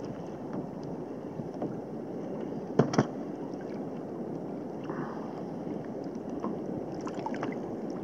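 Steady wind and sea-water noise on the microphone, with two sharp knocks close together about three seconds in.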